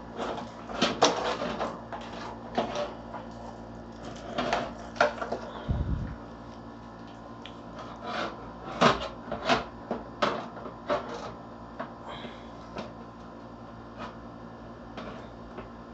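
A power supply being handled and set into the bottom of a PC case: irregular clicks, knocks and scrapes of the unit against the case's metal, with a short low thump about six seconds in.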